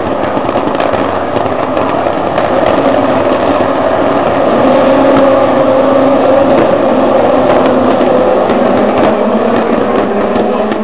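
A pack of FIA Formula Two single-seaters, Williams JPH1s with turbocharged four-cylinder engines, running together at high revs as the field accelerates away at a race start. Many engine notes overlap into one loud mass that grows louder about halfway through.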